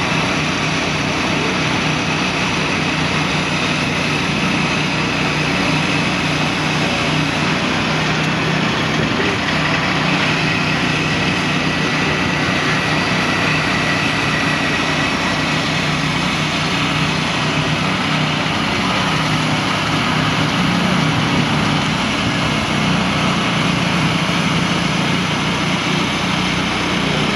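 Norwood Frontier OS-27 manual bandsaw mill running, its gasoline engine driving the band blade with a loud, steady drone.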